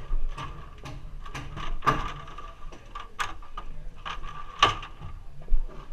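Irregular knocks and clanks of a 6-foot stepladder with aluminium steps being gripped and climbed, with gloved hands and boots striking the rungs. The loudest knocks come about two seconds in and again just past four and a half seconds.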